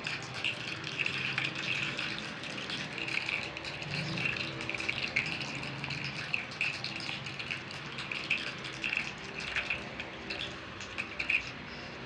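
Gummy candies being chewed and squished, a string of irregular wet, sticky clicks and squelches.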